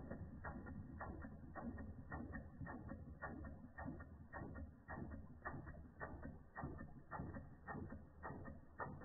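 Replica Ernst Plank tripod toy steam engine running, its moving parts making a steady run of light mechanical clicks at about three a second.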